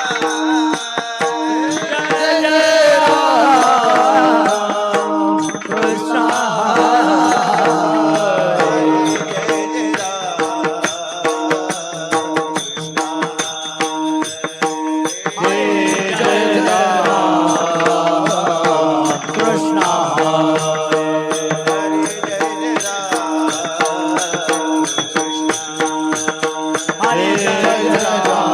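Devotional kirtan singing: a voice sings long, ornamented melodic phrases over a steady held drone, with hand percussion keeping time.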